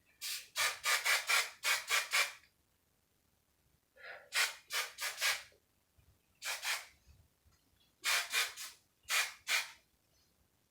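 Hairspray sprayed onto hair in quick short spritzes of hiss, several bursts at a time in four groups with pauses between.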